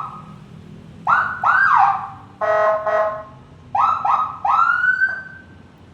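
Aftermarket electronic siren on a Harley-Davidson Street Glide being run through its tones. It gives a burst of three quick rising whoops, then two short buzzing horn blasts about halfway through, then more quick whoops ending in one longer rising wail.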